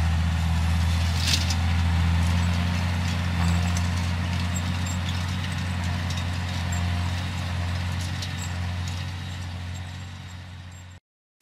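John Deere 6520's six-cylinder diesel engine running steadily as the tractor pulls a Revilla tine cultivator through the field, its low drone slowly fading as it moves away, with a few light clicks. The sound cuts off abruptly near the end.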